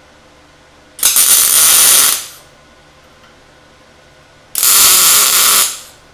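Two tack welds: an electric welding arc crackling for about a second each time, the second about three and a half seconds after the first, over a steady low machine hum.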